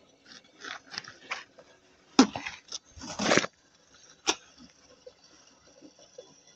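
Handling noises: scattered clicks and rustles, a sharp knock about two seconds in and a louder scraping burst a second later, then another click and a faint steady hiss.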